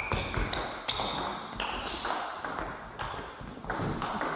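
Table tennis rally: the celluloid-plastic ball clicking quickly back and forth off rackets and the table, with short high squeaks of shoes on the sports-hall floor as the players move.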